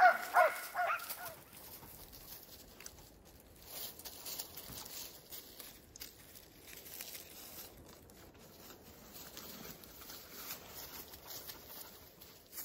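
Hunting laikas barking a few times right at the start, then quiet rustling and scattered soft steps in dry grass and leaves.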